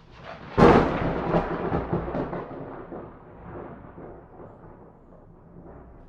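Thunderclap: a soft rumble, then a sharp crack about half a second in, breaking into crackling, rolling rumbles that fade away over the next five seconds.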